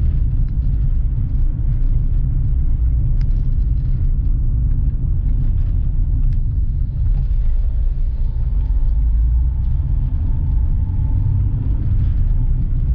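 Steady low rumble of a car driving slowly on a town street, heard from inside the cabin: engine and road noise, with a couple of faint clicks.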